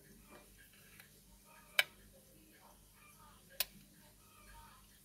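Two sharp metallic clicks about two seconds apart, with a few fainter ones between, from a gloved hand handling a silver verge pocket watch's case and chain.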